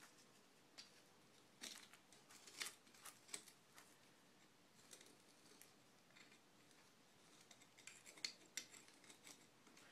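Faint, irregular scraping strokes of a screwdriver tip digging caked oil and sand off a moped's steel center stand mounting bracket.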